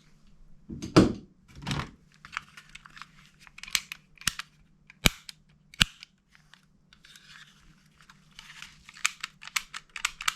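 Plastic toy guns being handled: two dull knocks, then a run of sharp single clicks with rustling between them, and a quicker cluster of clicks near the end.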